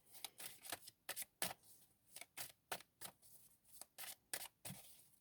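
Tarot cards being handled, making a run of quiet, irregular clicks and snaps.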